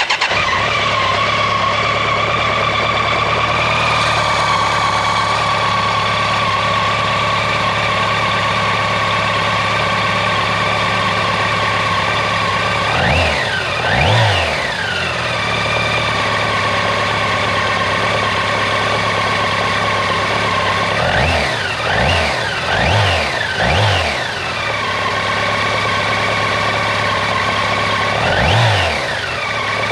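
BMW K1200RS motorcycle's inline-four engine idling steadily, with short throttle blips: two about 13 seconds in, four in quick succession a little after 20 seconds, and one more near the end.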